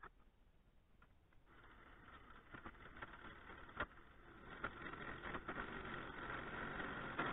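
A turning tool cutting an ash spindle on a running wood lathe: a rough, scraping cut with scattered ticks over the lathe's steady whine, starting faint and growing louder from about a second and a half in.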